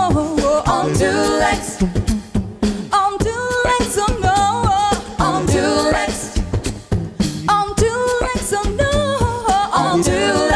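A pop a cappella group of several voices singing in harmony, without clear lyrics, over vocal percussion that keeps a steady beat.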